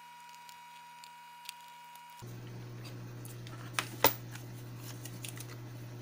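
A low steady hum that sets in suddenly about two seconds in, with two sharp clicks near the middle, the second the loudest, and a few fainter ticks after.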